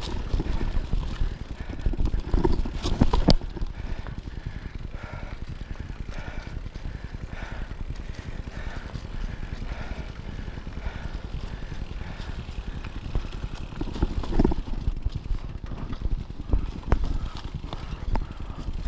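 Mountain bike rolling fast down a dirt trail: wind buffeting the microphone and tyres on dirt make a steady low rumble, with a cluster of knocks and rattles from bumps about two to three seconds in and another about fourteen seconds in.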